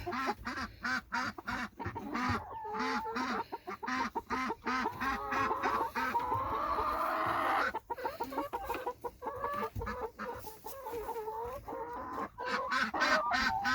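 Hens clucking: a steady run of low clucks, about three a second, with higher, wavering calls over them, mostly in the second half.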